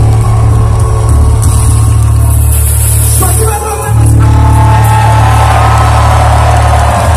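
Heavy metal band playing live at very loud volume, heard from within the crowd: heavy bass and drums with guitars, dropping back briefly about three and a half seconds in before the full band comes back with a sung vocal line.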